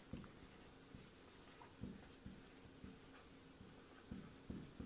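Faint, scattered strokes and taps of a marker pen writing on a whiteboard, over near-silent room tone.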